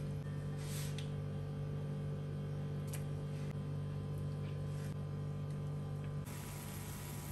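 A steady low hum, with a few faint light taps as food is dropped into a pot of broth. About six seconds in the hum drops away and an even hiss of boiling water takes over.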